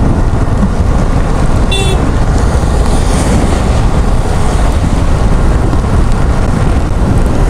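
Riding noise from a motorcycle on the move: a loud, steady low rumble of wind and road noise, with a short horn toot about two seconds in.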